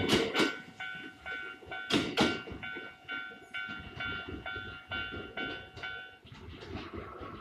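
Japanese level crossing warning bell ringing in a steady electronic ding about twice a second, with a Kintetsu electric train's wheels clacking over the rail joints, loudest in the first couple of seconds. Near the end the bell's pattern changes to a lower tone.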